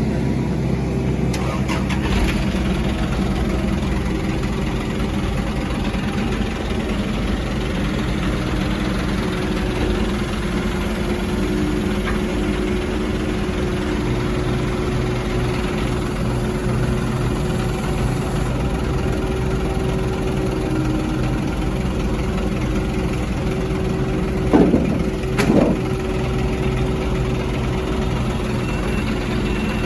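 Diesel engine running steadily, with two short louder sounds that bend in pitch about 25 seconds in.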